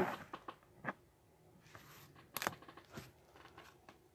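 Scattered light clicks and taps of trading cards being handled and set down on a tabletop, the sharpest about halfway through.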